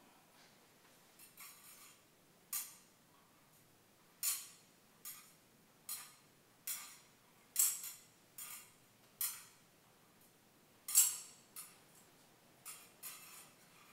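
A series of light, sharp clicks and taps, about a dozen, falling into an even pace of a little more than one a second through the middle before turning irregular, with a quiet room between them.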